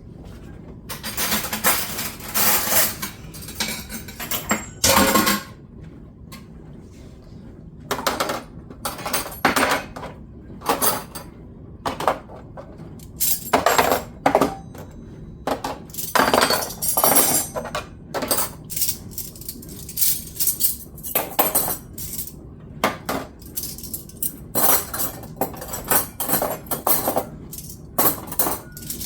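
Dishes and cutlery clattering and clinking as kitchenware is handled and set down, in many separate short clatters with brief pauses between.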